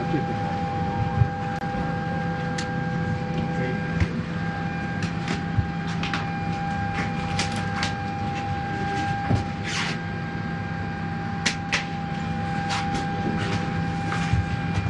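Steady ventilation hum inside an airliner cabin, with a constant whine over it, broken by scattered sharp clicks and light knocks.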